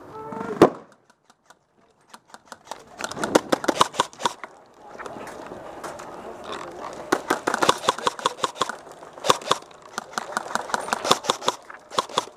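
Paintball markers firing in rapid strings of sharp pops, after a single loud pop about half a second in.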